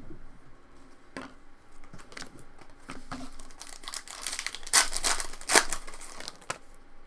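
Foil trading-card pack wrapper being torn open and crinkled in the hands, in short rustling bursts that grow loudest about four to six seconds in.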